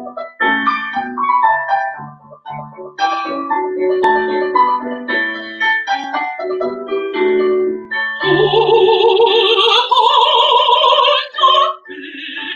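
Piano playing a run of separate notes, then about eight seconds in a woman's operatic voice comes in on a long, wavering note that climbs, with the piano under it.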